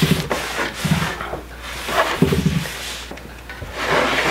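A cloth rag rubbing a beeswax-and-oil conditioner into a wooden cherry cutting board in quick back-and-forth strokes, with a few short low hum-like sounds between the strokes. Near the end the board is gripped and shifted on the wooden table.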